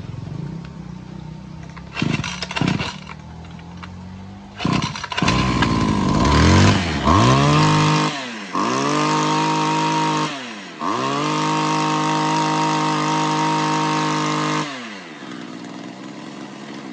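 Small 26cc two-stroke brush cutter engine pull-started, catching about five seconds in after two short pulls. It is then revved to full throttle three times, dropping back between bursts, with the last burst held for about four seconds before it settles to idle near the end.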